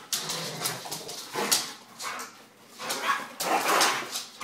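A Labrador and a collie play-fighting, barking and yipping at each other in short, irregular bursts, loudest about a second and a half in and again near the end.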